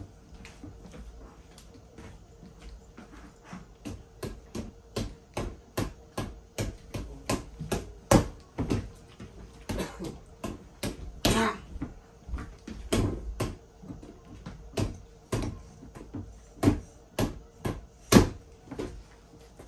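Punches landing on a FITVEN freestanding reflex punching ball, mounted on a springy pole: a run of thuds about two a second, uneven in timing, with a few harder hits among them.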